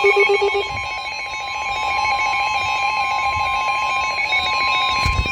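Emergency alert warning tone: a long, steady high tone that heralds a severe thunderstorm warning, cutting off near the end. A short thump sounds just before it stops.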